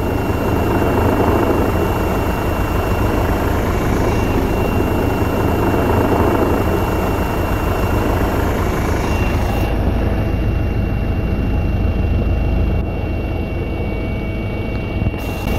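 Helicopter heard from on board: a steady, loud rotor and engine rumble with a constant high whine over it.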